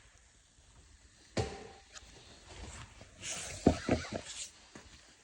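Handling noise from plastic body-kit parts being fitted to the car: a sharp click about a second and a half in, then a short cluster of knocks and scraping near the end.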